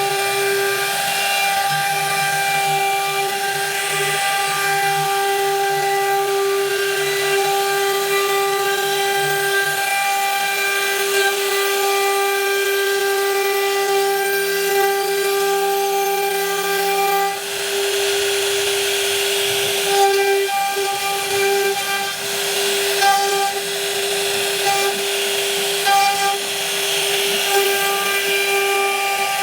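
CNC router spindle running with a steady high whine while cutting wood, the cutting noise growing rougher and more uneven about two-thirds of the way through.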